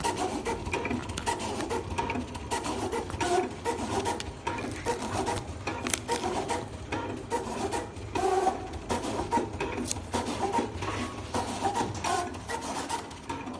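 DKOM-350 automatic decal die-cutting machine at work: the cutting head's motors whir in short, irregular moves of shifting pitch, with frequent clicks.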